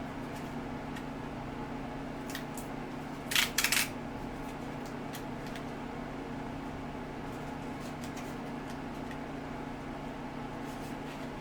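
Steady low hum, with a short burst of rustling and clicking about three and a half seconds in as small accessories and their packaging are handled, and a few faint ticks elsewhere.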